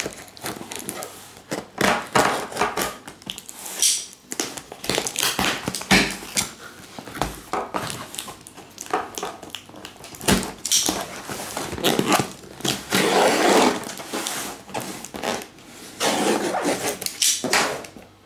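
Box cutter slicing and scraping through packing tape around a cardboard box, with tape ripping and cardboard rasping in irregular strokes, including a longer stretch of scraping about two-thirds of the way through.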